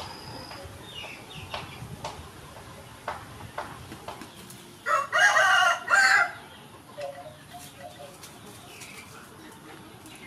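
A rooster crowing once, a loud call of about a second and a half starting about five seconds in, against faint scattered clicks.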